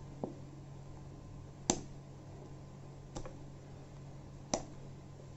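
Four short clicks about a second and a half apart, a utensil knocking against a steel mixing bowl as whipped cream is scooped out onto a cake layer, over a steady low hum.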